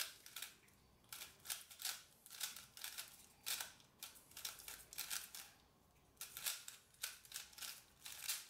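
GAN 356i smart 3x3 speed cube being turned fast during a solve, its plastic layers clacking in quick bursts of clicks with brief pauses between.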